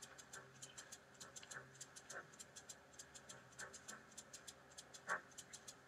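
Near silence with faint, rapid, even ticking, about five ticks a second, and a few faint short sounds over it.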